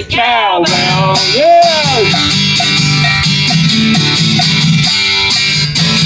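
Live country song: acoustic guitar strummed in a steady rhythm with a hand-held cowbell struck along on the beat. A man's singing voice holds and bends a long note over the first couple of seconds.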